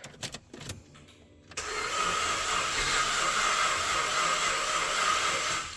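After a few clicks, the starter motor cranks a 2005 Holden VZ Commodore's V6 for about four seconds without it firing. It spins in an even, fast whirr with no compression pulses, which the mechanic takes for absolutely no compression, though he allows the engine could be flooded with fuel.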